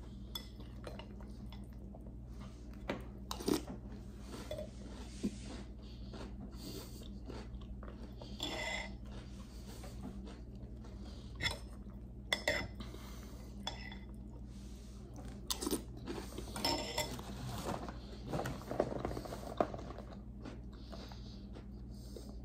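Metal spoon clinking and scraping against a glass bowl of cereal and milk now and then, with chewing of crunchy chocolate cereal puffs between scoops.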